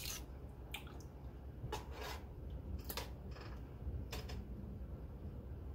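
A spoon stirring chili in a large stainless steel pot, knocking against the pot with about half a dozen scattered sharp clinks over the first four seconds, over a low steady hum.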